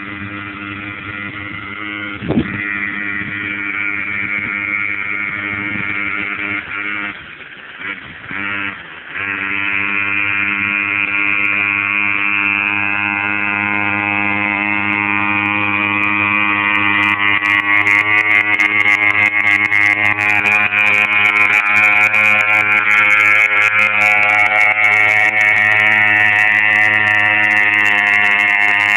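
Weedeater (string-trimmer) two-stroke engine powering a small homemade boat's prop, running at a steady note. A sharp knock sounds about two seconds in; the engine falters and drops in loudness for a couple of seconds about a quarter of the way through, then picks up and runs louder and steady to the end.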